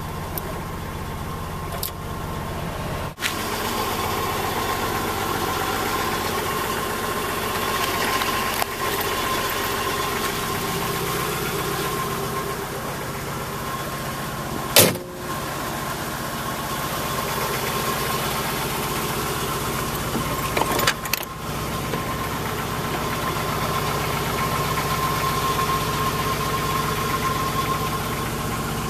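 A 1960 Chevrolet Bel Air's engine idling steadily. A single sharp knock comes about halfway through, and a few smaller clicks follow some seconds later.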